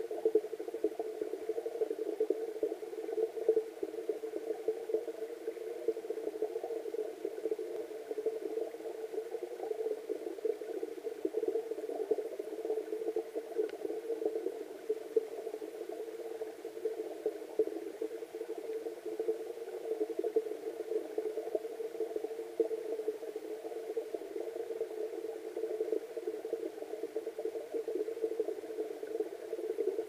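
Water bubbling and churning, heard underwater beneath a small cascade pouring into a stream. It is a dense, muffled bubbling that stays steady, with its sound packed into the lower middle range.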